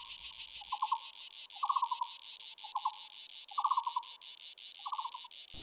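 Forest insects buzzing in a steady, fast pulse, high-pitched. Over it, a short trilled call repeats about once a second, six times.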